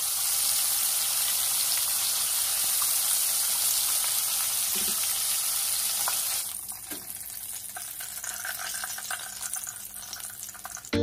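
Cornstarch-coated shrimp deep-frying in hot oil: a steady sizzle that turns quieter about six and a half seconds in, with light scattered crackling as the pan empties.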